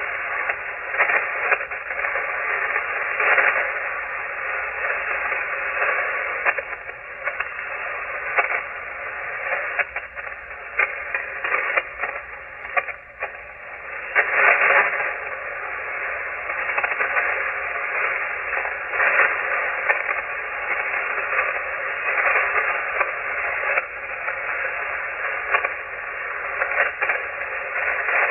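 HF shortwave receiver tuned to the 40-meter amateur band with no station talking: a steady hiss of band noise with frequent crackles of static and faint steady tones. The audio is thin and muffled, cut off above about 3 kHz by the receiver's narrow filter.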